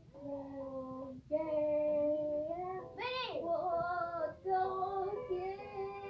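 A young girl singing a simple tune in held notes, with a high swoop up and back down about three seconds in.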